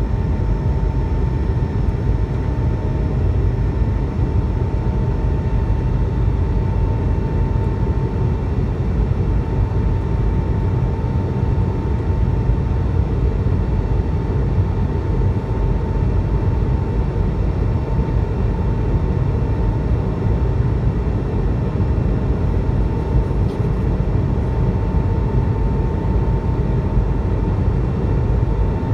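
Steady cabin noise of an Airbus A220-300 in flight: the deep rumble of its geared turbofan engines and the airflow, with a thin, steady whine running over it.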